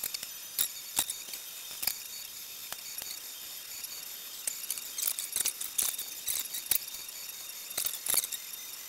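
Monoprice Select Mini 3D printer at work: its stepper motors give a steady high whine broken by quick clicks and short bursts of high chirps as the print head moves, busier from about halfway through.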